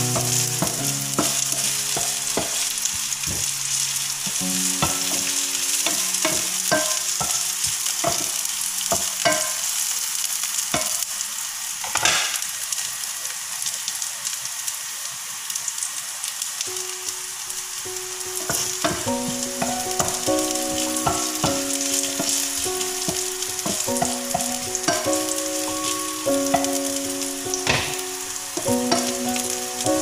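Oil sizzling steadily as minced ginger, garlic and spring onion sauté in a nonstick frying pan, with a spatula scraping and clicking against the pan. A simple tune of held notes plays underneath during the first few seconds and again through the second half.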